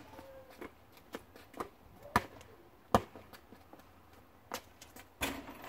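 Basketball bouncing on an asphalt driveway: a string of single sharp thumps at uneven gaps, the loudest about two and three seconds in and again near the end.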